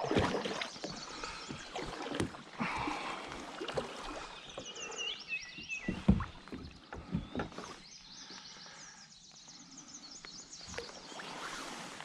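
Splashing water and irregular knocks and bumps against a kayak as a just-caught smallmouth bass is handled aboard.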